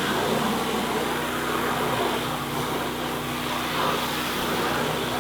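Gas-engine pressure washer running steadily, its water jet hissing as it sprays down a car's body.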